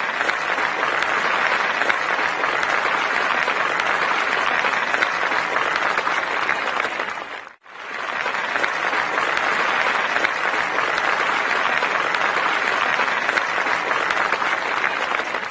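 Crowd applauding steadily, in two long stretches with a brief drop-out about seven and a half seconds in.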